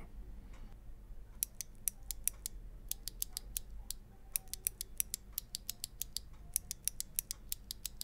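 Two loose clicky mechanical key switches, hybrids fitted with a click jacket, pressed and released by fingers in turn. They give a run of sharp clicks, several a second, starting about a second and a half in.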